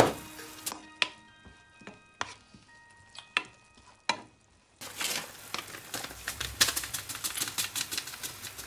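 Kitchen work sounds: a sharp knock, then a few separate clinks of utensils on dishes that ring briefly, then a dense run of rapid clicks and crackles from about halfway through.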